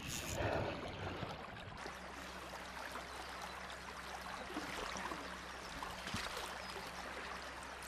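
Faint, steady rush of flowing river water, with a low steady hum coming in about two seconds in.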